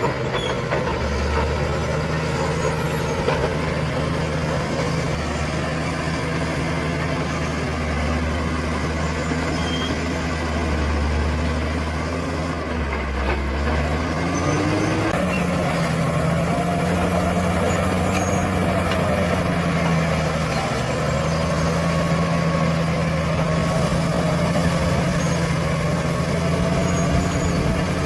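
Bulldozer's diesel engine running steadily under load. Its pitch rises about halfway through and holds higher after that.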